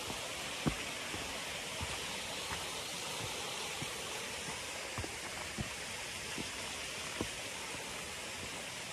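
Steady rushing hiss of a woodland stream and waterfall. Over it come soft, low thumps at a walking pace, footsteps on the stream path.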